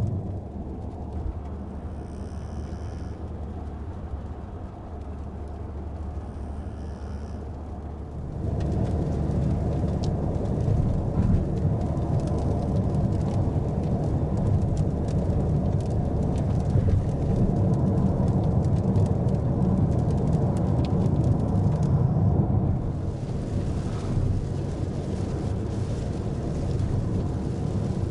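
Car driving on an expressway in heavy rain, heard from inside the cabin: a steady rumble of tyres on the wet road with raindrops hitting the car. It grows louder for about fourteen seconds in the middle, then eases back.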